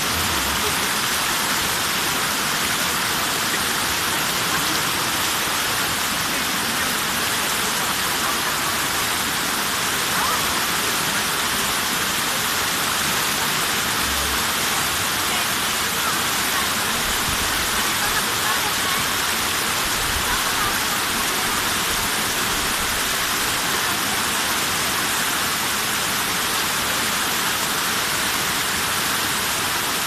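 Waterfall rushing steadily into its rock pool, a continuous even roar of falling water.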